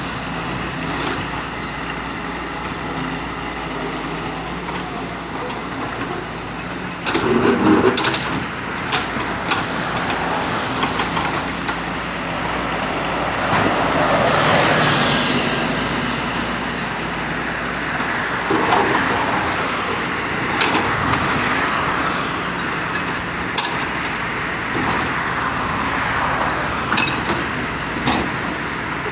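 Diesel engine of a Doosan DX140W wheeled excavator running steadily under work, with a surge about seven seconds in and scattered short knocks and clanks.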